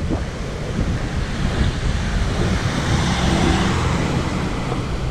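Wind rushing over the microphone of a moving motorcycle, with steady road and vehicle rumble underneath; the rush swells for a moment about three seconds in.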